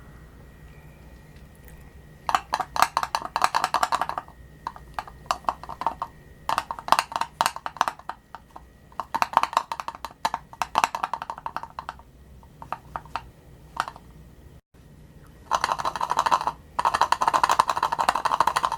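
Rear-view mirror of a Suzuki Bandit 250 motorcycle rattling: bursts of rapid clicking, each lasting a second or two, repeating several times. This is the abnormal noise being tracked down.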